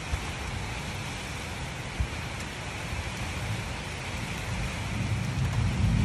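Strong wind and rain: a steady hiss, with a low rumble of wind buffeting the microphone that grows louder near the end. A single short thump about two seconds in.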